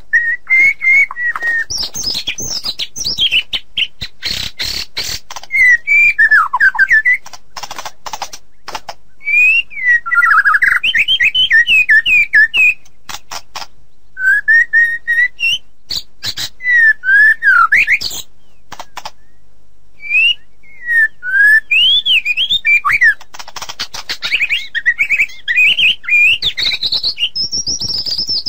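White-rumped shama (murai batu) singing: fast, varied phrases of whistled notes sliding up and down, broken by sharp clicking, rattling notes, with a brief pause partway through.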